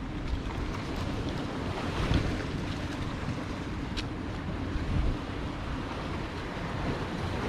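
Ocean surf washing onto the beach, with wind buffeting the microphone in a steady low rumble; a single sharp click about four seconds in.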